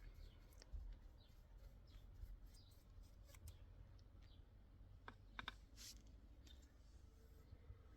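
Near silence with faint scattered clicks and light scraping, and a short cluster of sharper clicks about five seconds in.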